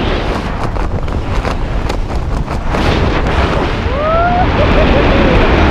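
Wind buffeting a GoPro's microphone under an open parachute canopy, a steady loud rush with fluttering crackles in the first few seconds. About four seconds in, a person's voice briefly rises over the wind.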